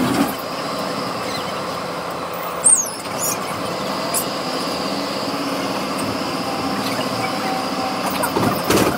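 Tram running, heard from inside the car: a steady rolling rumble of wheels on rail, with a brief high-pitched wavering squeal of steel wheels on the track a little under three seconds in and a shorter squeak about a second and a half later.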